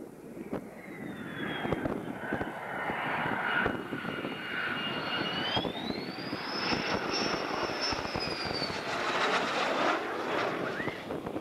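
F-16 fighter with its landing gear down passing low on approach: a high jet-engine whine rises in pitch about halfway through, holds, then falls away as the jet goes past, while a broad rushing jet noise swells near the end. Wind buffets the microphone.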